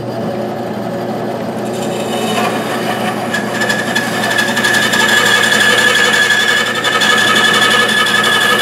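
Bandsaw running with a steady motor hum, its blade cutting through a rounded wooden carving. About two and a half seconds in the cut gets under way and the sound grows louder, with a steady high whine over the rasp of the blade in the wood.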